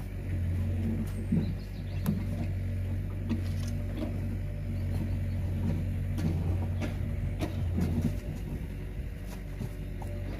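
Diesel engine of a mini digger running at idle, a steady low drone that thins out about eight seconds in, with a few light knocks.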